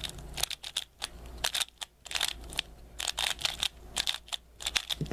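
Plastic Valk 3 speedcube being turned quickly by hand: rapid, irregular clacks of its layers snapping into place, in short flurries.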